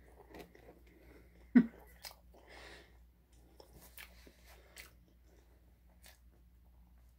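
A person chewing a mouthful of grilled spaghetti sandwich close to the microphone, with soft wet chewing and sharp mouth clicks. A brief loud sound falling in pitch comes about a second and a half in.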